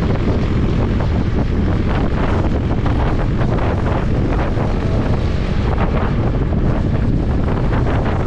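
Wind buffeting an action camera's microphone, a loud, steady rumble with rapid flutter.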